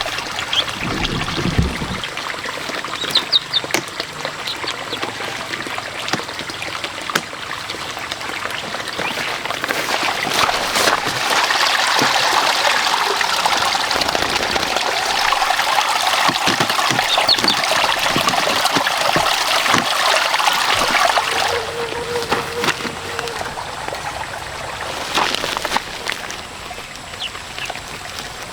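Water trickling and splashing, louder through the middle, with a few sharp knocks.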